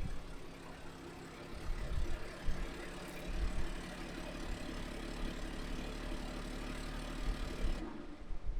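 A motor vehicle's engine running steadily with road noise, cutting off abruptly near the end.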